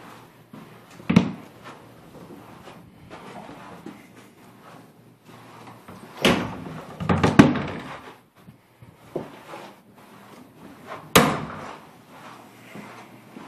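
Wooden doors being opened and shut, with sharp knocks and bangs: one about a second in, several around six to seven and a half seconds, and one more near eleven seconds.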